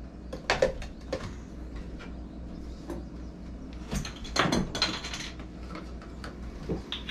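Scattered light knocks and clatter of kitchen things being handled at a counter by the sink, with a busier spell of handling about four to five seconds in.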